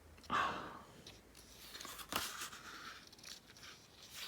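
Photobook pages being turned and handled: a loud papery swish about half a second in, a sharp rustle about two seconds in, and softer paper rustling between.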